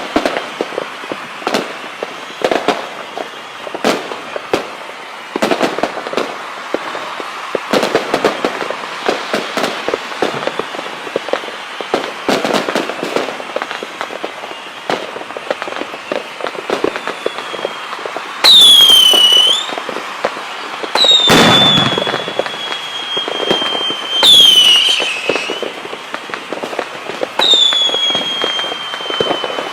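Fireworks going off: many cracks and bangs, then, from about two-thirds in, four loud whistles, each sliding down in pitch and then holding a shrill tone.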